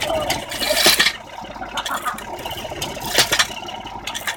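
Metal clanking and scraping from a heavy driving hammer being worked up and down, with an engine running. Sharp clanks come about a second in and again past three seconds.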